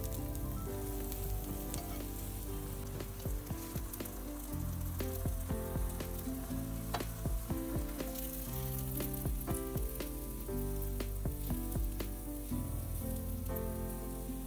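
Egg and bread frying in butter in a nonstick pan, a steady sizzle, with scattered clicks and scrapes of a silicone spatula against the pan as the omelette edges are folded over the bread. Background music with sustained notes plays underneath.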